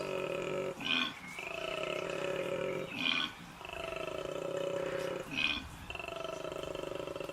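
Male koala bellowing its mating call: long, buzzing, droning notes that fall slightly in pitch, alternating with short, louder grunts about every two seconds, three times.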